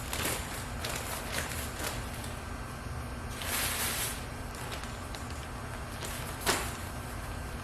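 Hands-on work noise over a steady low hum: a few light knocks, a short rustling scrape near the middle, and one sharper knock near the end.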